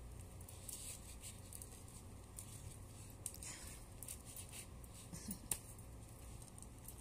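Faint rustling and light clicks of hands handling a wig's hair, with a sharper click about five and a half seconds in.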